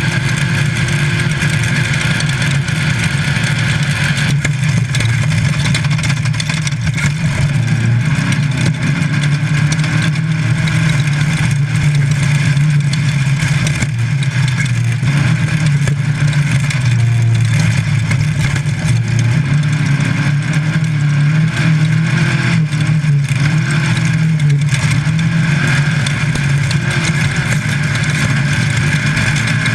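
Class 5 Baja Bug's air-cooled VW engine running hard at steady high revs, heard from inside the car. Its pitch wavers only a little, under a constant wash of road and body noise.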